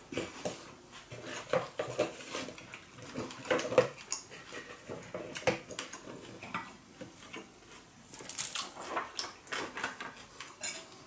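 Scattered, irregular clinks and taps of plates, bowls and utensils being handled at a dining table.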